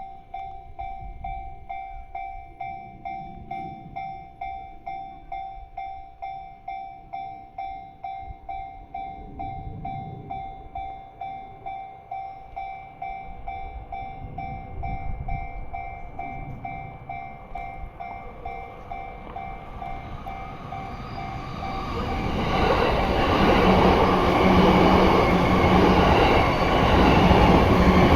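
Railway level-crossing alarm ringing a steady repeating electronic bell. About 22 seconds in, a JR Yamanote Line train passes close by. Its rail and wheel noise, with a low steady motor hum, builds up and drowns the bell.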